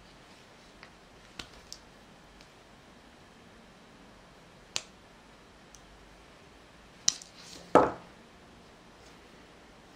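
Faint clicks and ticks of fingers handling thin wires and heat-shrink tubing on a workbench. Near the end there is a sharper click, then a louder knock as a small pair of pliers is picked up from the bench.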